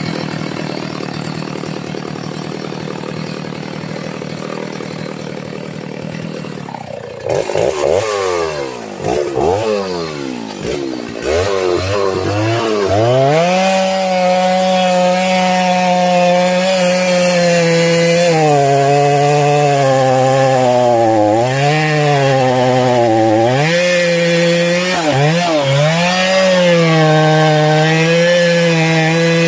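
Stihl two-stroke chainsaw idling for about seven seconds, then revved up and down a few times, then held at full throttle cutting into a mahogany trunk near its base, the engine note dipping briefly under load several times.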